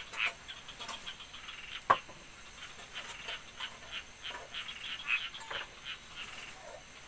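Short, high animal calls repeating several times a second, with a single sharp click about two seconds in.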